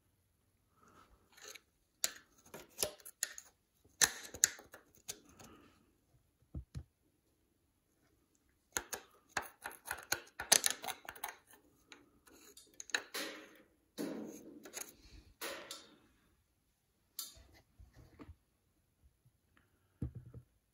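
A thin metal tool scraping and tapping around the rocker arms and valve springs of an air-cooled VW engine's cylinder head, in old sludge: irregular sharp clicks and short scrapes with brief pauses between them.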